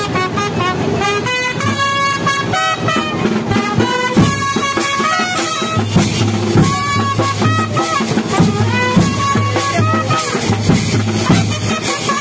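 Loud street procession music: a melody line moving over a steady beat, with a low bass note pulsing from about halfway through.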